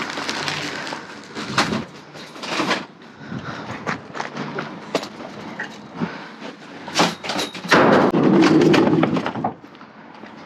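Rummaging through a dumpster: items knocking and thudding amid rustling. A louder, denser stretch of rustling comes about three-quarters of the way in.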